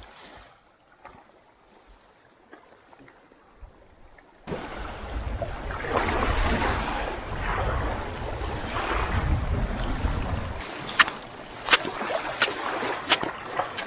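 Wind gusting on the microphone: a loud rumbling rush that starts suddenly about a third of the way in and eases near the end. After it come light, sharp slaps of sandalled footsteps walking on sand, one every half to three-quarters of a second.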